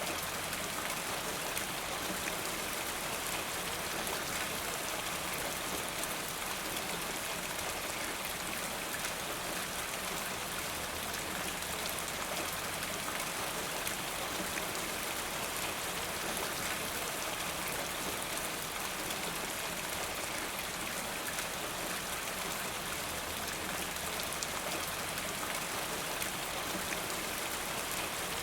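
Steady, even rain falling, many fine drops pattering on a surface, with no breaks or changes.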